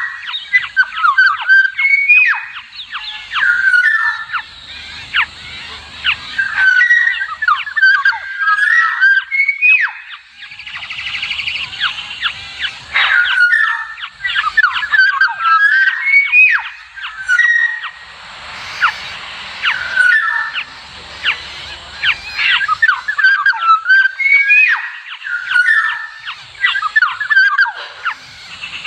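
Black-naped orioles calling: repeated short fluty whistled phrases that glide up and down, mixed with many quick sharp call notes, going on without a break.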